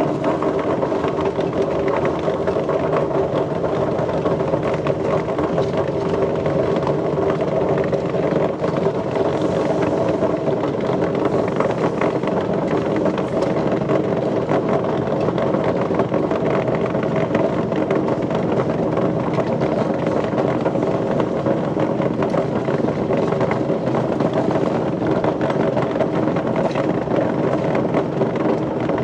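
Machinery running steadily with a constant hum and a dense mechanical noise that does not change.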